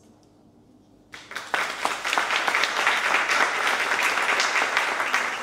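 Audience applause, breaking out suddenly about a second in and quickly swelling to steady clapping.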